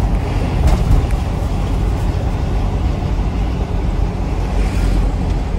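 Diesel minibus driving at road speed, heard from inside the cabin: a steady low engine and road rumble.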